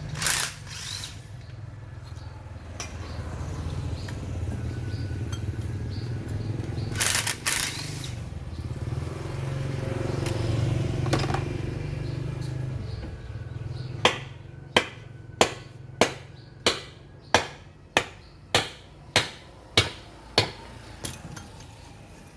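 A low steady rumble, then, just past the middle, a run of about a dozen evenly spaced hammer blows, roughly three every two seconds, each ringing briefly, as the water pump is knocked apart.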